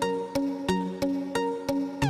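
Intro music: a steady run of short, sharply struck notes, about three a second, each fading before the next.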